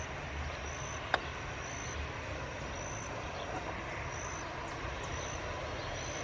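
Airbus A320 airliner taxiing past with its jet engines at idle: a steady rushing hum. A sharp click about a second in, and a faint high chirp repeating about every second and a half.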